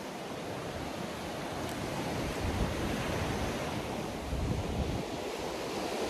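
Sea waves washing onto a sandy shore, a steady rushing hiss, with wind gusting on the microphone as low rumbles about two and a half and four and a half seconds in.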